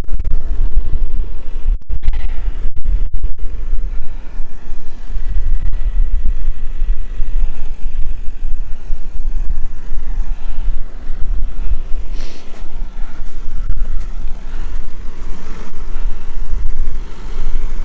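Versatile 150 tractor engine running while it works a hay bale, under heavy wind buffeting on the microphone.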